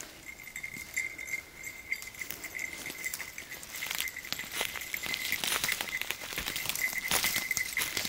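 Hurried footsteps crunching and snapping twigs on a forest floor of needles and dry litter, growing louder and busier about halfway through as the pace picks up. A thin, high pulsing tone sounds steadily behind them.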